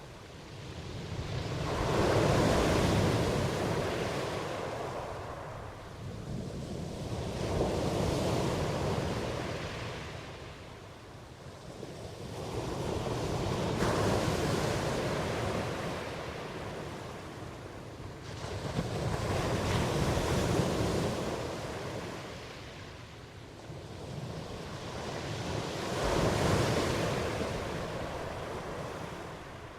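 Ocean surf: waves breaking and washing in, each swelling up and fading away, about one every six seconds.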